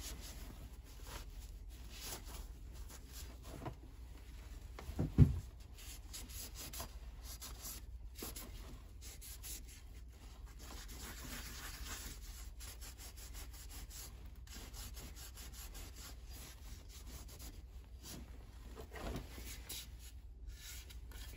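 A cloth rag rubbing and wiping over an axe head and its wooden handle in quick, repeated strokes, with one low knock about five seconds in.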